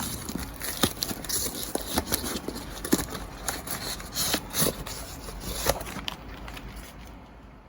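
Blu-ray packaging being handled: crinkling and scraping of plastic and cardboard with many scattered sharp clicks and taps, fading near the end.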